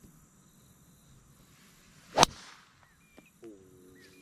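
A golf club striking a golf ball: one sharp crack about two seconds in, led in by the swish of the swing.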